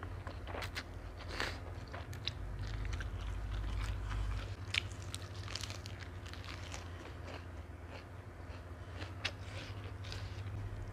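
Close-miked eating of a noodle salad: chewing and wet mouth smacks with scattered sharp clicks and crunches, and fingers picking up noodles. A steady low hum runs underneath.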